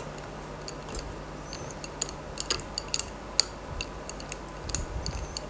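Irregular light metallic clicks and clinks of hand tools and small parts being handled on an engine under repair, over a faint steady hum.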